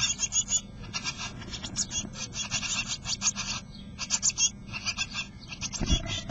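Blue tit nestlings begging inside a wooden nest box: high-pitched calls in rapid, repeated bursts while the parent feeds them. Near the end a brief low thump as the adult bird moves off the nest.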